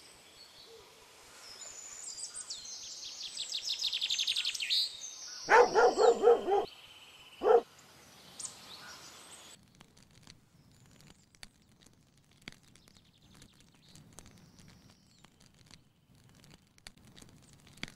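A songbird singing a fast high trill that grows louder, then a dog barking four times in quick succession and once more a moment later. Afterwards only faint scattered clicks and knocks.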